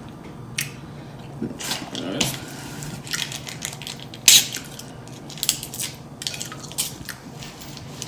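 Close-miked mouth sounds of a person eating: irregular wet smacks, clicks and chewing, loudest about four seconds in.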